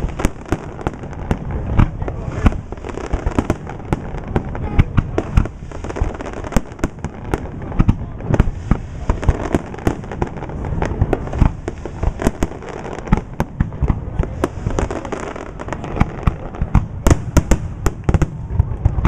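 Aerial fireworks shells bursting in rapid, irregular succession, a dense string of booms. A flurry of sharper cracks comes near the end.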